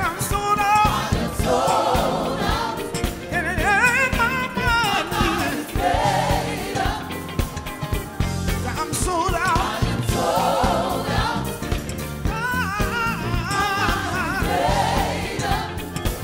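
Live gospel song: a male lead singer sings wavering, gliding vocal runs into a microphone over a choir and instrumental accompaniment.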